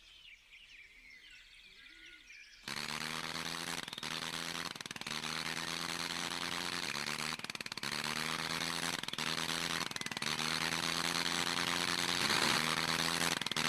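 Old biplane's piston engine running: it cuts in suddenly about two and a half seconds in and holds a steady pitched drone, broken by short pops or dropouts roughly every second. Before it starts, faint birdsong.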